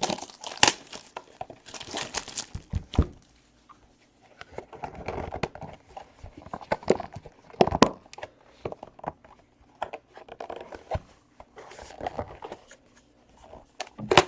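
Plastic wrapping being torn and crinkled as a sealed box of trading cards is opened: irregular ripping and crackling rustles with sharp snaps, easing off briefly about four seconds in.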